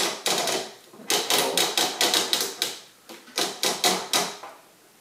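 Runs of quick, sharp clicks from the head of a Newgy Robo-Pong 1040 table-tennis robot being turned and adjusted by hand. There are a few clicks at the start, a run of about nine a second in, and another five or so near the end.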